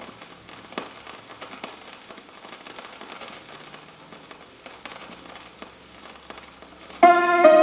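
Vinyl record surface noise in the blank groove between tracks: a faint hiss with scattered crackles and clicks. About seven seconds in, the next track starts suddenly with loud keyboard chords.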